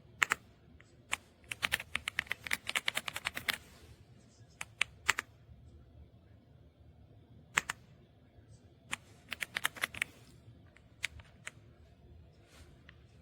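Typing on an EPOMAKER x Aula F75 gasket-mount mechanical keyboard: keystrokes in irregular bursts, a quick run of key presses early on, then scattered presses and a second short flurry, with pauses between them.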